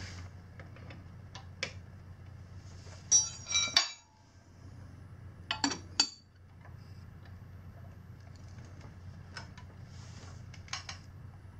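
Steel breaker bars and sockets clinking and clanking against each other and the engine as they are fitted to the cam sprocket bolt and the crankshaft bolt. The sound comes as short clusters of sharp metallic clinks, some ringing briefly; the loudest come about three and six seconds in.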